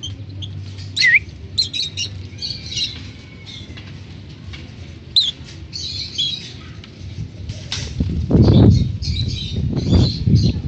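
African lovebirds giving short, sharp, high chirps and squawks. From about eight seconds in come loud bursts of wing flapping as the birds are let go and take flight.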